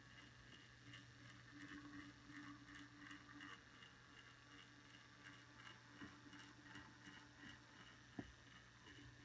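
Near silence: faint room tone with a steady low hum and faint ticking, and one small click about eight seconds in.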